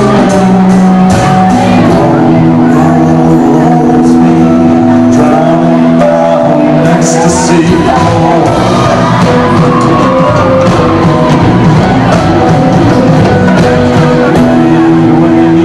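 Live rock band playing loud: sustained guitar chords that change every few seconds over drums and cymbal hits.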